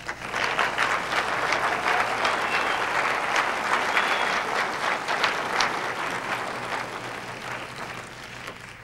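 An audience applauding: the clapping starts at once, holds steady for several seconds, then slowly dies away near the end.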